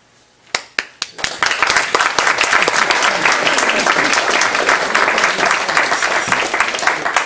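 Audience applauding. A few scattered claps start about half a second in, and by about a second and a half the whole room is clapping steadily.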